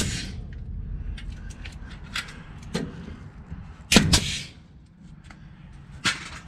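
Pneumatic framing nailer driving nails into a wooden frame: a sharp shot right at the start and another about four seconds in, each followed by a brief hiss of air, with a few light knocks between.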